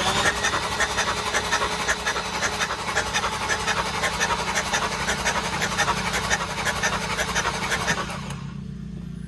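BMW N54 inline-six turning over on the starter without firing: its coil packs are out and its injectors are pulled for a leak-down test. It is a fast, even pulsing that runs for about eight seconds and stops suddenly.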